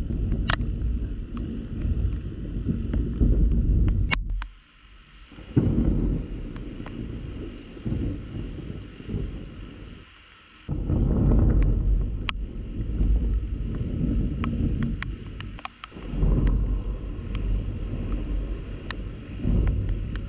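Thunder rumbling low and heavy in several stretches that start and stop abruptly, with scattered sharp ticks of raindrops hitting the camera's waterproof housing.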